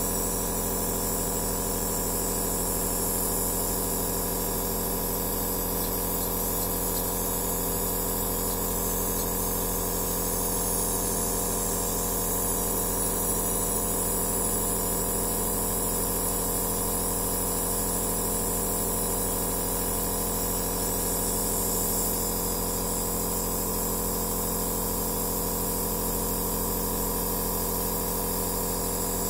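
Compressor nebulizer (aerosol therapy machine) running steadily: an even mechanical hum under a hiss of air.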